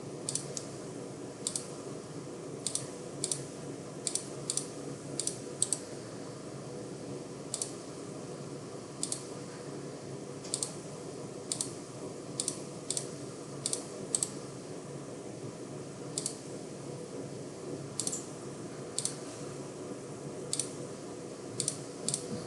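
Computer mouse clicks, single and in quick pairs, spaced irregularly, over a faint steady hum.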